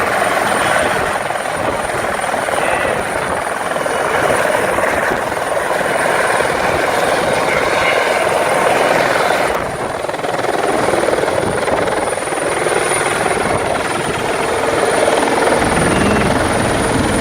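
Helicopter running close by: a loud, steady rotor and engine noise with a thin, high, constant whine, dipping briefly about ten seconds in.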